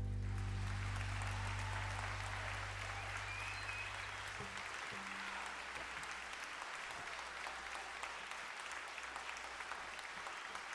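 Audience applauding, with the band's final low chord ringing under the clapping and dying away about four and a half seconds in.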